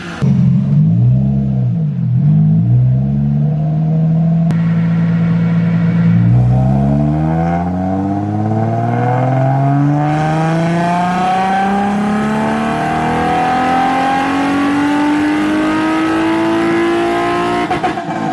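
Nissan 350Z's VQ35 V6 on a chassis dyno: a few rev blips and a brief steady hold, then one long wide-open pull with the pitch rising steadily for about twelve seconds, cut off just before the end.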